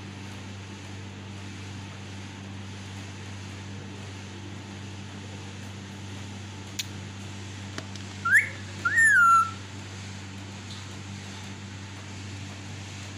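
Yellow (lutino) Indian ringneck parakeet giving two short whistled calls, each rising and then falling in pitch, the second one longer. A sharp click comes just before, over a steady low hum.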